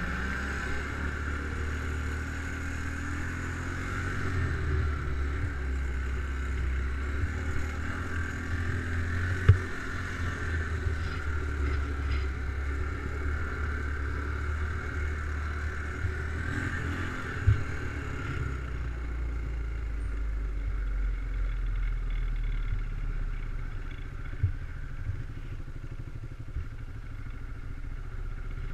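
ATV engine running steadily under way, with a few sharp knocks, the loudest about nine and a half seconds in.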